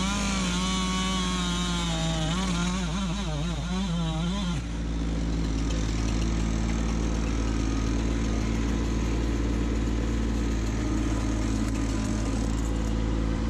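Chainsaw running at full throttle through a felled log, its pitch dipping and recovering in the cut, then cutting off about four and a half seconds in. Under it and after it, the Kubota B2601 compact tractor's diesel engine runs steadily.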